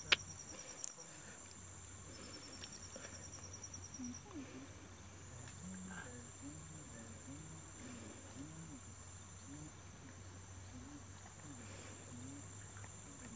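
Insects calling: a high, steady buzz with a fast, evenly pulsed trill over it for the first few seconds. Two sharp clicks come in the first second.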